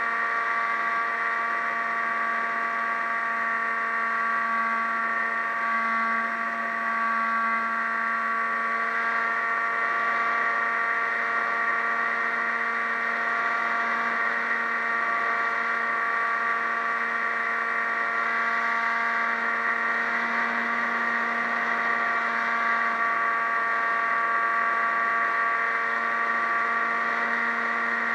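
Model aircraft's motor and propeller running steadily, heard from the onboard camera as a continuous whine with slight shifts in pitch here and there.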